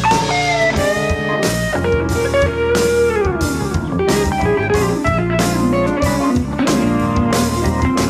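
Music: an electric guitar playing a bluesy line with notes that slide and bend, over a steady drum kit beat.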